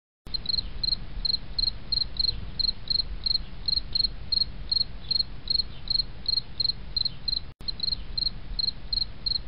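Insect chirping in a steady rhythm, about three high chirps a second, over a low rumble, with a brief cut about seven and a half seconds in.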